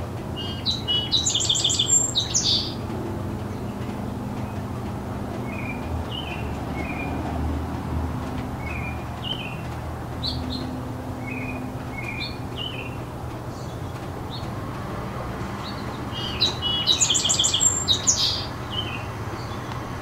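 Garden songbirds: a loud, fast phrase of song about half a second in and again near the end, with short chirps repeating roughly every second in between. A steady low rumble of distant city traffic runs underneath.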